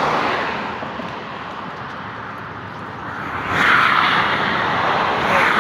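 Road traffic: passing cars' tyre and engine noise, loudest as a car goes by at the start, easing off, then swelling again about three and a half seconds in.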